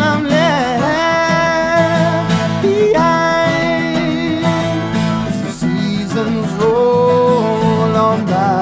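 Background music: an acoustic guitar song with a melody of long held notes that glide between pitches.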